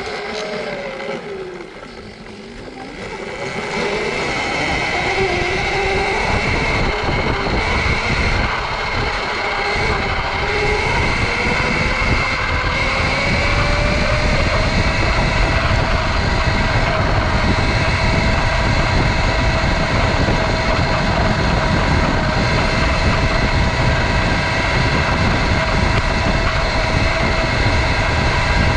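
Sur-Ron electric dirt bike's motor whining as it rides: the whine falls and fades briefly about two seconds in as it slows, then rises in pitch as it speeds up again and holds a steady high whine. Rushing wind and rolling noise under it.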